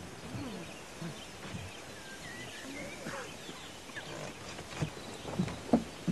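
Quiet crowd ambience: a low murmur with a few short high chirps about halfway through, and several sharp knocks near the end.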